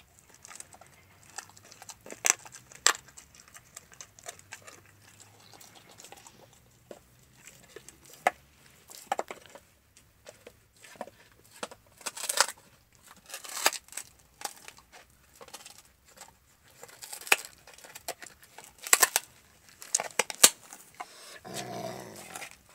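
Alaskan malamute chewing and gnawing on a raw meaty bone: irregular crunches and clicks of teeth on bone and meat, coming in short clusters. A brief low sound comes near the end.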